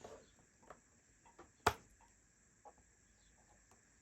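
Faint handling clicks and taps, with one sharp click about one and a half seconds in: small grommets being prised out of a speaker's front panel.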